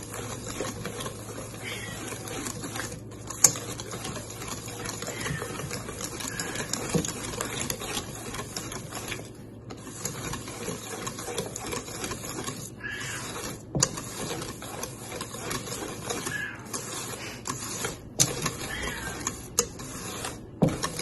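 Wire whisk beating chopped chocolate, cocoa powder and boiling water in a bowl: a quick, steady clatter of the whisk against the bowl, with a few brief pauses, as the chocolate melts into a smooth mixture.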